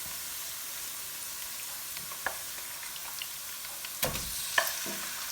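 Spices and herbs frying in hot coconut oil in a pan, a steady faint sizzle. A few sharp clicks and knocks of a stirring utensil against the pan come through it, the loudest about four seconds in.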